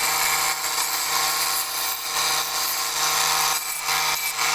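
Handheld power tool running steadily under load, a motor hum under a harsh high grinding hiss, which stops abruptly near the end.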